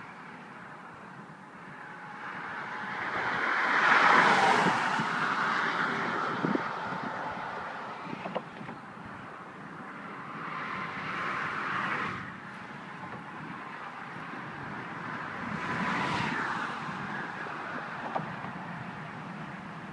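Road traffic passing: three vehicles go by one after another, each a tyre-and-engine noise that swells and fades, the loudest about four seconds in and the others near the middle and toward the end.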